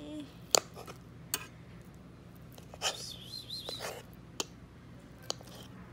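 Metal fork scraping and tapping on a plate while cutting boiled egg and noodles, with a few sharp clinks and a short high squeak about three seconds in.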